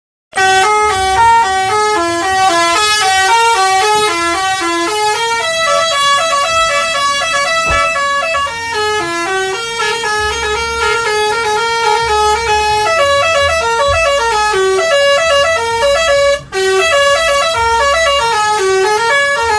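Indonesian 'telolet' multi-tone bus horn playing a fast, snaking tune, several horn notes sounding together and stepping quickly up and down in pitch. It breaks off briefly about sixteen seconds in, then picks up again.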